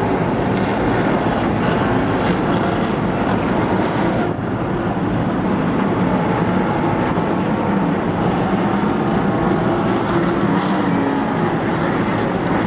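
NASCAR Camping World Truck Series race trucks' V8 engines running at race pace as a pack laps the track, a dense continuous engine noise with wavering pitch.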